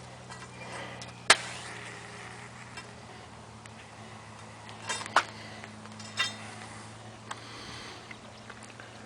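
Matches struck against a matchbox: a few short, sharp scratches, the loudest about a second in and more around five and six seconds in, as he fails to get a match to stay lit in the wind. A steady low hum runs underneath.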